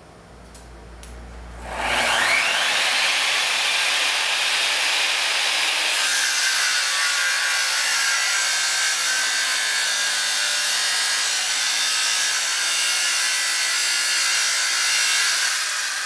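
Electric angle grinder spinning up with a rising whine about two seconds in, then running steadily and grinding metal held in a vise, the pitch of the grinding noise shifting about six seconds in.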